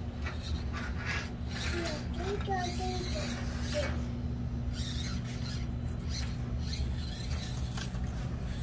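Axial Deadbolt RC rock crawler's tires scraping and grinding over course obstacles, with a steady low hum from its electric drivetrain under load.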